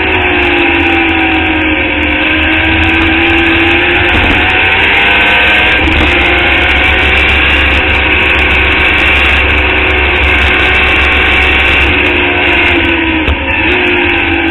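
Club Formula Indy open-wheel race car's engine running hard at track speed, heard onboard. The engine note sags over the first couple of seconds, holds, then breaks briefly about thirteen seconds in before picking up again.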